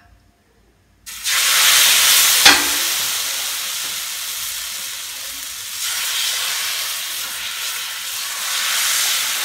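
Thin finger-millet (ragi) neer dosa batter hitting a hot oiled tava and sizzling loudly, starting suddenly about a second in. There is one sharp knock a moment later, and the sizzle swells again as more batter is ladled on.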